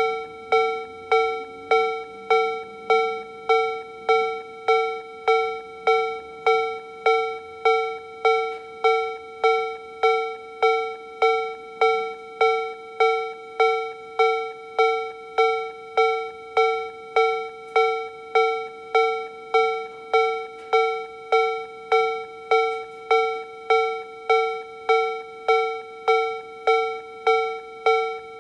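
Japanese railway level-crossing alarm from a Toho Denki Kogyo TA3-VR electronic warning-sound generator, playing the Tobu Railway B/C tone at its slow tempo. A bell-like electronic ding repeats evenly about three times every two seconds, each strike dying away quickly.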